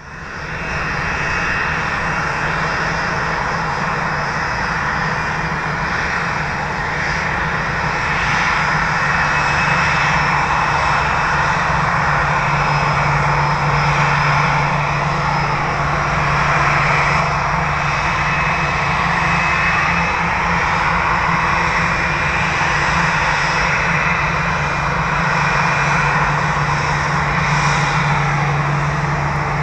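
Jet engines of a Boeing 787-8 with Rolls-Royce Trent 1000 turbofans running steadily, a constant low hum and high whine over a broad rushing noise, with no spool-up.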